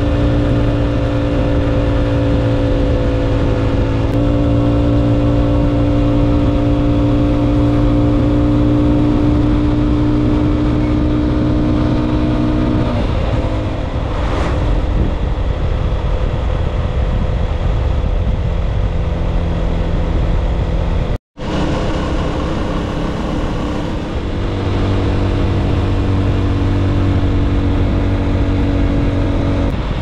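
Honda CB190 motorcycle's single-cylinder engine running steadily at cruising speed, heard from the rider's seat. About halfway through, the engine note drops away as the throttle eases. Later it settles back into a steady note, with a momentary dropout about two-thirds in.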